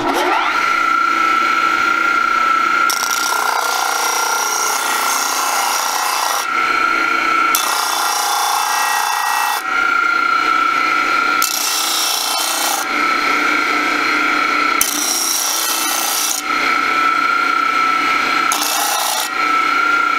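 Stationary disc sander starts up and runs with a steady high motor whine. A headlight housing's plastic mounting lip is pressed against the sanding disc in about six passes of one to three seconds, each adding a harsh grinding rasp as the lip is sanded down flush.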